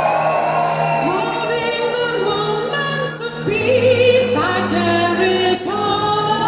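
Live symphonic metal played with an orchestra: held string chords under singing voices, with a few crashes in the middle. The sound is recorded from the audience.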